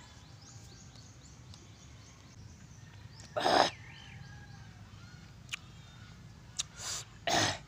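Short, loud breathy mouth noises from a man eating sour calamansi with chili, one about halfway through and a quick cluster near the end, over faint bird chirps in the background.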